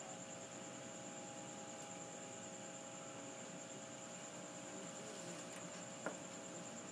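Steady electrical mains hum, with a constant high pulsing insect trill beneath it. A single short click comes about six seconds in.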